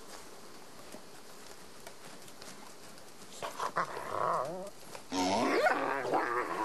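Wolf whining and yelping. The cries start about halfway in and grow louder near the end, with sharply rising yelps.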